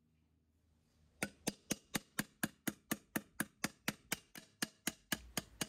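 Light hammer blows on the edge of a stainless steel pipe, a steady run of quick taps about four or five a second, starting about a second in. The end is being gently turned over an aluminium former inside the bore, shrinking and radiusing it into a curve.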